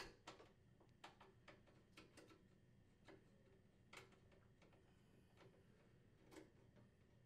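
Faint, irregular small clicks of a Phillips screwdriver turning a screw out of a washer lid's hinge bar, the tip working in the screw head.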